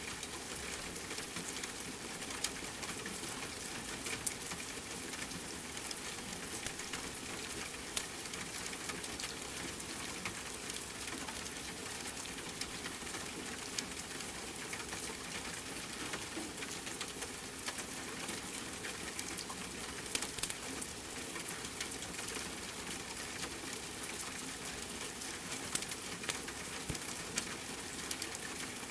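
Steady rain mixed with a crackling wood fire: an even hiss with scattered sharp pops and crackles.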